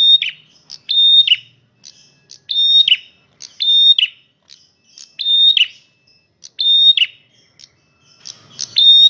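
A male prenjak merah sings loudly, repeating a short, high, chattering phrase about seven times, roughly once every second or so, with a slightly longer pause near the end.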